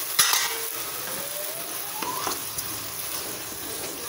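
The water the peas were boiled in is poured into a hot pan of frying masala, hissing sharply as it first hits. Then comes a tone that rises in pitch over about two seconds as the pour goes on, and a few clicks.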